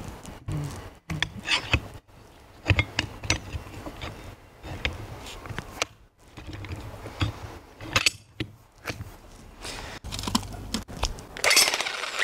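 SDS Max clay spade bit being pushed and twisted into a demolition hammer's chuck: a string of metal clicks and knocks with some scraping. A louder, steady noise starts just before the end.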